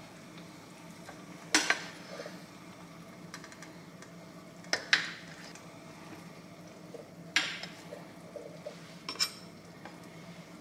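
Dishes and kitchen utensils clinking and knocking together during meal preparation: about six sharp clinks, some in quick pairs, spaced a few seconds apart over a faint steady hum.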